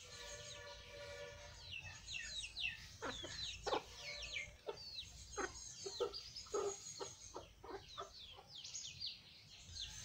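Chickens clucking: one drawn-out call for the first second and a half, then a run of short clucks about every half second, with high falling chirps throughout.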